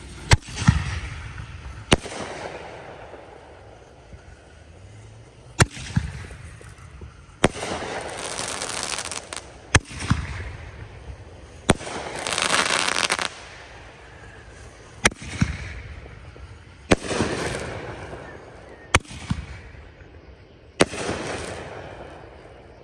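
Consumer firework mortar shells from a Dr. Shell mortar kit going off: about ten sharp bangs spread over the stretch, several of them followed by a second or two of dense crackling.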